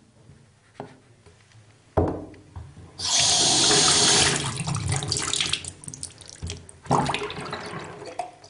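A sudden thump about two seconds in, then loud rushing water that eases off, with a second sudden hit and gush near the end.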